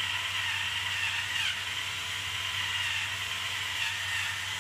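Electric pepper grinder whirring steadily as it grinds black peppercorns onto minced pork.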